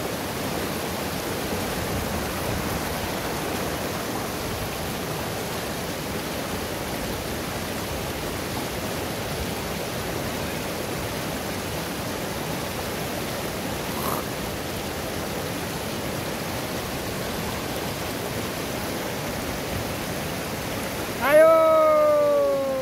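Shallow, rocky mountain river rushing steadily over rapids. Near the end a voice calls out once, loud and falling in pitch.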